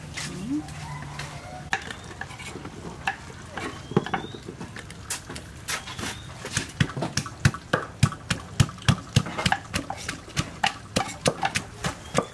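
Wooden pestle pounding garlic cloves in a wooden mortar: dull knocks, sparse at first, then a steady run of about three strokes a second from about halfway in.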